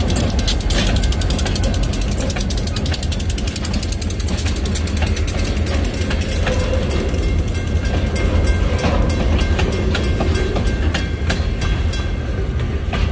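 Diesel-hauled freight train rolling past: the last locomotive rumbles by, then freight cars rattle over the rails, with a steady low rumble throughout.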